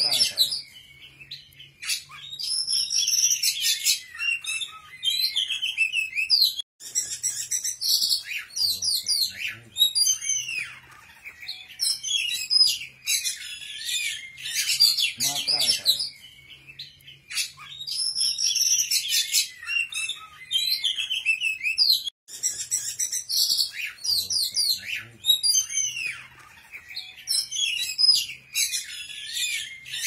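A songbird singing a fast, varied run of high chirps, trills and whistled glides in bursts of a few seconds with short pauses between. The same stretch of song comes round again about every fifteen seconds, as in a looped bird-song training recording (masteran).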